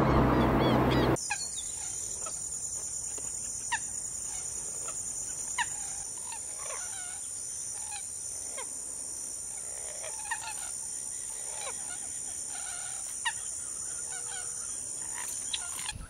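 A loud rushing noise for about the first second, then a cut to marsh sound: a steady high-pitched insect drone with scattered short, sharp bird call notes, many of them sliding down in pitch.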